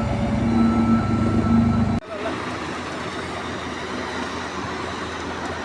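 A heavy vehicle's engine running close by, with a reversing beep sounding on and off over it. Both cut off suddenly about two seconds in, leaving a softer steady rumble of site noise.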